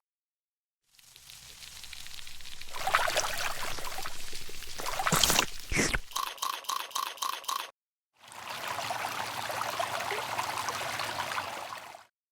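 Water pouring and running, in edited pieces that start and stop abruptly. About six seconds in, a quick run of even ticks, about five a second, breaks the flow.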